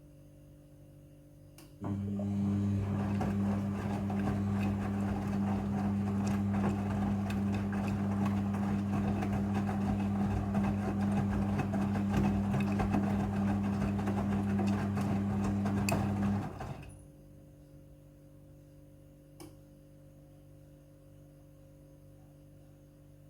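Front-loading washing machine during its rinse stage: a steady machine hum with rushing water noise starts abruptly about two seconds in, holds level for about fifteen seconds, then cuts off.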